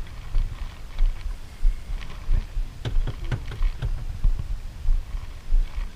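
Uneven low rumble of wind and water around a small wooden outrigger boat, with a few sharp knocks about halfway through.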